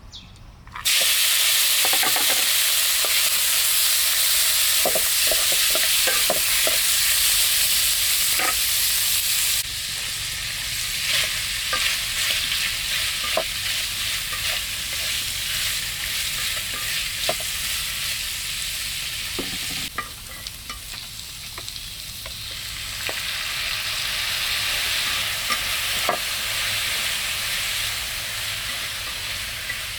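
Food frying in hot oil in a pan, sizzling loudly from a sudden start about a second in, with scattered clinks and scrapes of a utensil stirring it. The sizzle eases a little around ten seconds and again around twenty.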